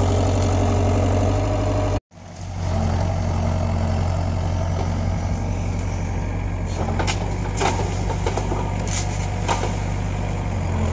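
Compact excavator's diesel engine running steadily. From about two-thirds of the way in, several sharp cracks and snaps of branches break over it as the arm pushes into a tree.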